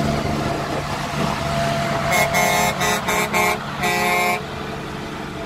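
Truck air horn sounding in several short toots and then one longer blast, over the steady running of a heavy truck engine.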